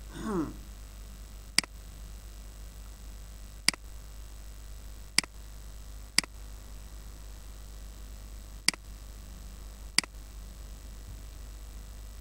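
Computer mouse button clicking six times at uneven intervals, over a steady low hum.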